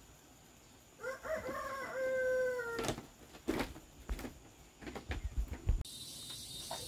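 A rooster crows once, a single long call of nearly two seconds that rises at the start and then holds. Several sharp knocks and thumps follow.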